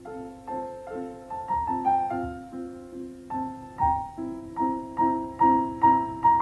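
Piano music: a melody over repeated chords, each note struck and fading, at an even pace.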